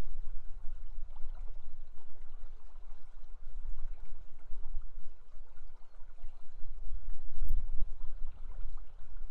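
River water flowing, a steady rush with a low rumble underneath; a single short click about seven and a half seconds in.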